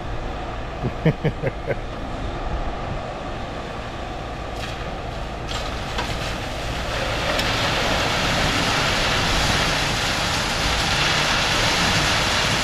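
Concrete pump truck running steadily, a constant engine rumble with the pump working. A hissing wash grows louder from about seven seconds in.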